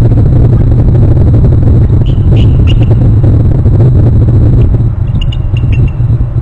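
Wind buffeting an outdoor microphone with a loud steady low rumble. A few short high bird chirps come through about two seconds in and again near the end.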